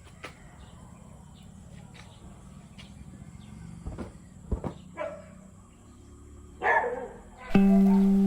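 Faint scattered clicks and knocks, then a short dog bark falling in pitch near the end, just before music with plucked guitar-like notes starts.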